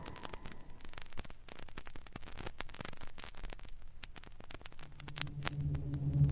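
Vinyl record surface noise: scattered crackles and clicks over a faint hiss in the silent groove between two tracks. About five seconds in, a low electronic hum fades in and swells as the next space sound effect begins.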